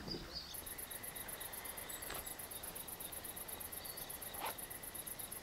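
High-pitched insect chirping in an even, rapid pulse of about seven chirps a second, starting about half a second in, with a couple of faint rustles.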